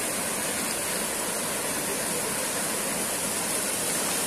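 A river in flood, its muddy water rushing fast over a wide channel: a steady, even rush of turbulent floodwater.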